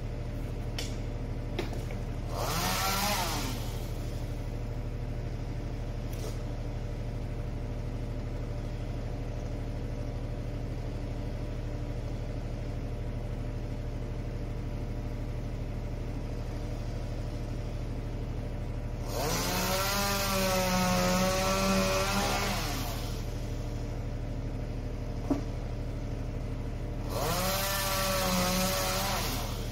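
A chainsaw revving up in three bursts: a short one about two seconds in, a longer one of about four seconds about two-thirds of the way through, and another near the end. Under it the boom truck's engine runs steadily.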